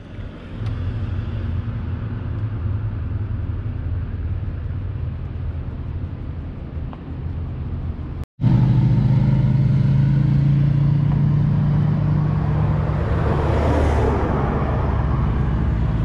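Road traffic: a steady low rumble of vehicle engines. It jumps louder after a sudden cut about halfway through, and one vehicle swells past near the end.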